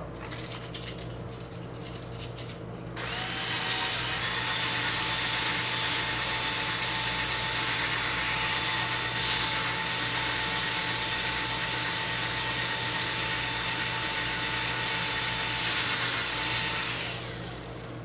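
Small cordless drill-driver spinning an electric fan's rotor shaft in its chuck while wet sandpaper is held against it to take off rust and burrs. A steady motor whine over a sanding hiss starts about three seconds in and stops shortly before the end.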